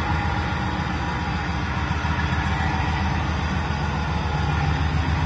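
Alco FA-1 diesel locomotive's V16 engine running steadily, heard from inside the cab as a constant low rumble.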